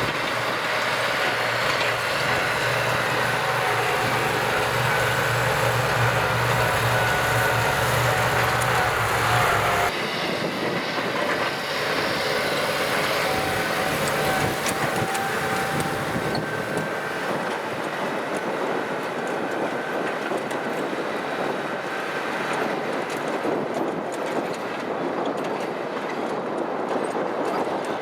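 Diesel engine of a Kubota M6040SU tractor running steadily while working a field, with rattling from the machine; the sound changes abruptly about ten seconds in.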